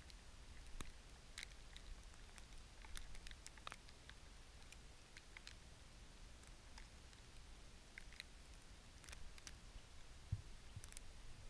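Near silence: faint, irregular small ticks and light rustles, with a soft low thump about ten seconds in as the hunter shifts his position and bow.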